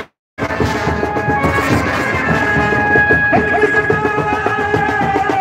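Procession band music: a held wind-instrument melody over steady drumming. The sound drops out for a split second right at the start.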